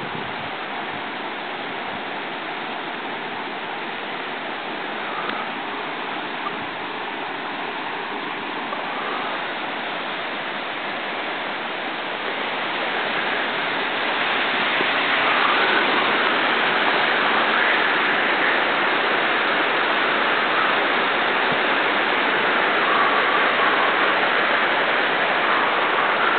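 Running water rushing steadily, growing louder about thirteen seconds in and staying loud.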